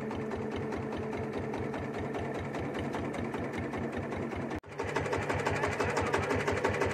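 Small boat's engine running steadily with a fast, even firing rhythm. It cuts out abruptly for an instant about four and a half seconds in, then carries on slightly louder.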